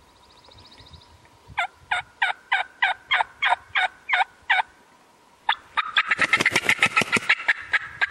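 Turkey calling: about a dozen evenly spaced yelps, roughly three a second, then after a short pause a loud, rapid rolling gobble lasting about two seconds.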